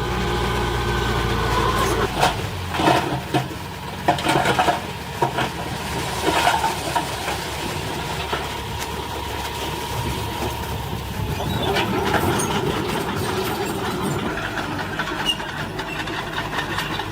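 Heavy diesel earthmoving machinery running. A deep steady hum drops away about two seconds in, followed by a few seconds of irregular clanks and knocks, then a steadier engine sound.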